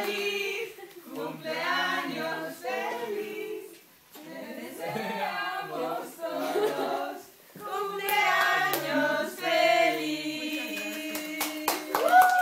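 A group of people singing a birthday song together in phrases, ending on a long held note; clapping starts just before the end.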